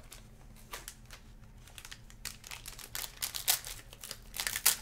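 Foil trading-card pack wrapper crinkling as it is handled and opened: scattered sharp crackles that grow denser and louder, loudest near the end.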